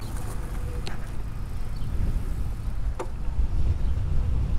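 Low wind rumble on the microphone while riding outdoors, with two sharp clicks about one and three seconds in.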